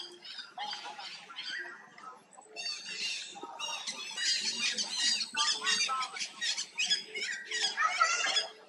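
Young long-tailed macaques squealing and screeching: scattered high-pitched cries at first, then a dense, overlapping run of them from about three seconds in, loudest near the end.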